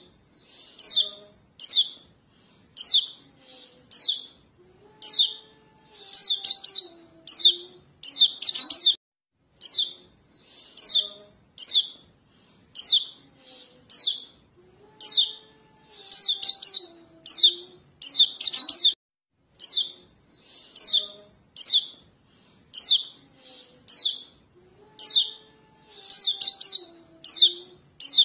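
Juvenile white-eye (pleci) begging calls, the young calling for their parents, used as a bird-trapping lure. High, thin chirps come in quick clusters about once a second, and the whole sequence repeats about every ten seconds as a loop.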